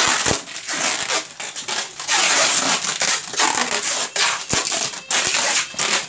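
Clear plastic food containers and plastic wrap crinkling and rustling in irregular bursts as they are handled and packed, with a light knock about four and a half seconds in.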